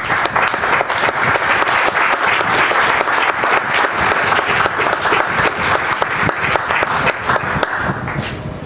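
Audience applauding: many hands clapping in a dense, steady stream that eases slightly near the end.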